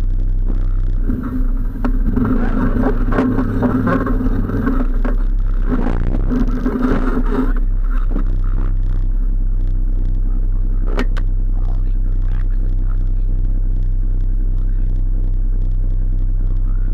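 An off-road vehicle engine idling close by, a steady low drone. From about a second in, another engine runs louder for around six seconds. There is a single sharp click around eleven seconds in.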